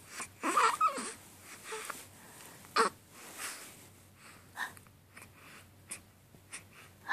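Short, soft wordless voice sounds and breaths from a person close to the microphone, with one sharp click about three seconds in.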